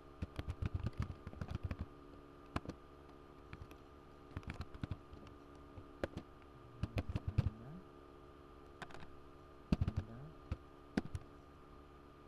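Typing on a computer keyboard: irregular bursts of keystrokes with pauses between, over a steady faint hum.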